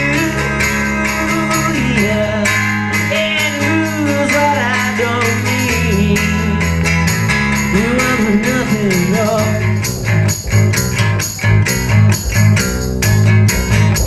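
Live acoustic band music: strummed acoustic guitar over electric bass, with a melody line bending in pitch through the first half. From about ten seconds in the bass plays short, regular pulsing notes.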